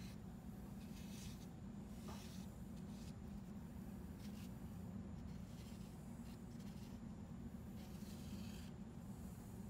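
Faint, irregular scraping strokes of a wooden stick spreading thick two-part epoxy paste on a wooden test joint, over a steady low hum.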